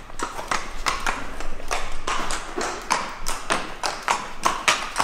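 A pony's hooves clip-clopping on a paved stable floor at a walk as it is led, about three knocks a second.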